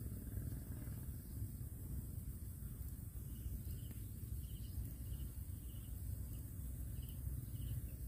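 Outdoor ambience: a fluctuating low rumble of wind on the microphone, with short high chirps repeating about twice a second from about three seconds in and a faint steady insect hiss.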